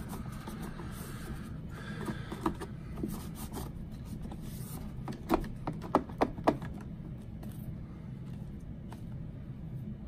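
Handling noises from a Roomba i7 robot vacuum being cleaned by hand: faint scraping, then four sharp clicks in just over a second a little past halfway, over a steady low hum.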